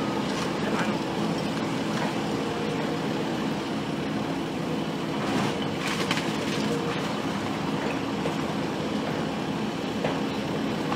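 Heavy demolition equipment running steadily, its engine a constant hum, with a few brief crunches of the house being torn down about five to six seconds in.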